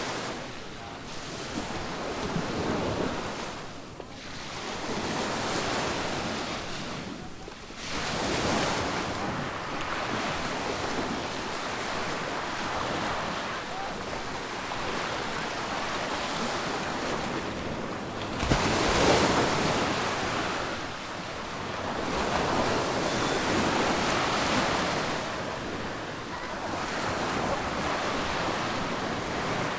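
Adriatic Sea waves washing onto a sandy beach, surging and ebbing every few seconds, with the biggest surge about two-thirds of the way in. Wind buffets the microphone.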